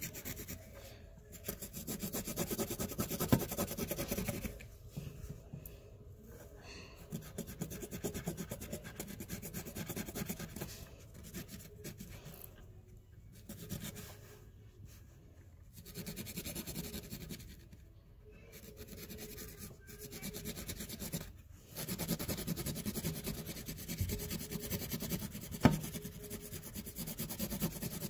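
Felt-tip marker scrubbing over a textured fabric tote bag while colouring in, in stretches of scratchy rubbing with short pauses between, and one sharp tap near the end.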